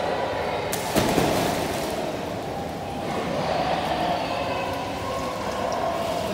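A person jumping into an indoor swimming pool: one loud splash about a second in, then the stirred-up water keeps moving afterwards.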